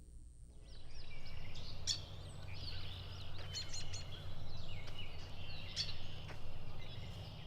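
Outdoor ambience of songbirds chirping and calling in many short notes over a steady low background rumble, starting about half a second in.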